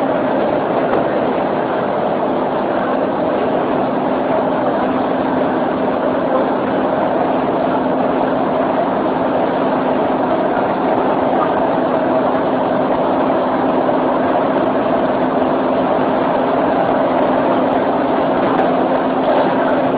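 Suburban electric train running at speed, heard from inside the carriage: a steady rumble with a constant low hum.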